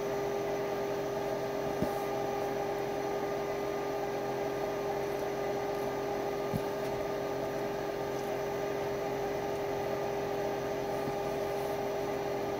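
Steady machine hum with one constant tone running through it, like a room fan or similar appliance, with two faint clicks.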